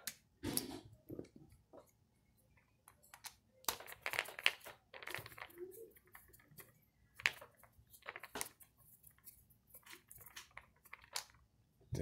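Irregular small clicks, knocks and scrapes of plastic and metal parts as an air compressor pressure switch is handled and fitted back together, with a screwdriver set to its screws, while the housing is struggled into line over its gasket.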